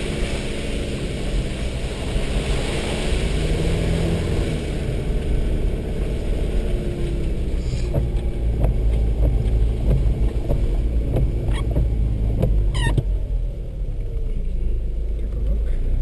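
Vehicle engine running at low speed on a rough dirt track, heard from inside the cab, its pitch rising and falling as the driver works the throttle. Several sharp knocks and clunks come in the second half.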